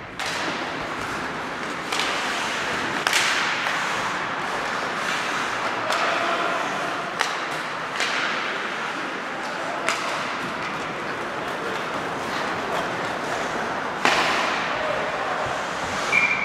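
Ice hockey play on a rink. Skates scrape steadily on the ice, broken by about nine sharp cracks of sticks on the puck and the puck against the boards, each echoing briefly in the hall. A referee's whistle blows near the end.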